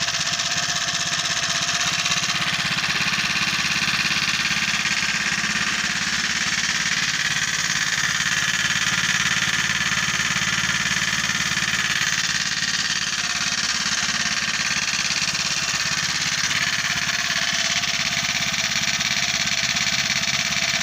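Predator 79cc single-cylinder four-stroke engine on a motorized bicycle running steadily, a rapid even train of firing pulses, its tone shifting slightly a few times.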